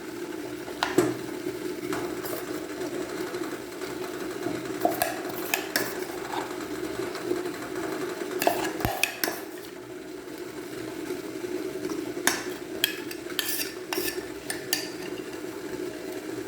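Utensil scraping and clinking against a metal idli plate as coarse millet dough is spooned onto it, with scattered sharp clinks. A steady low hum from the boiling idli pot runs underneath.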